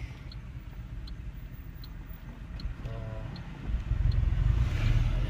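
Car turn signal ticking steadily, a little more than one tick a second, over a low in-cabin engine rumble. About three and a half seconds in, the engine and road noise rise as the car pulls away.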